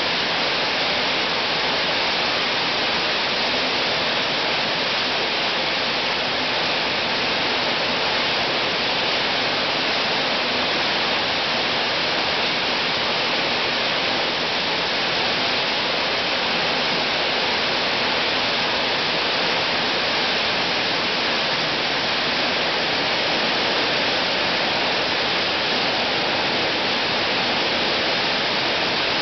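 PET bottle label-removing machine running, with bottles fed in by a conveyor and churned inside its drum: a loud, steady rushing noise that does not let up.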